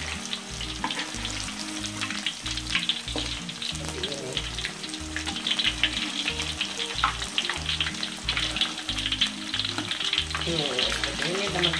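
Battered, vegetable-stuffed tofu deep-frying in hot oil, sizzling and crackling steadily, while a metal spatula stirs and turns the pieces.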